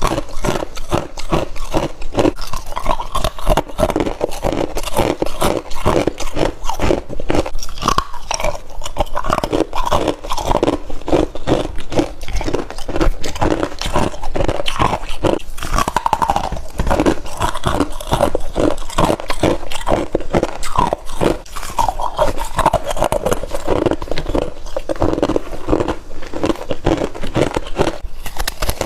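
Close-up biting and chewing of freezer frost: a dense, continuous run of crisp crunches with no pauses.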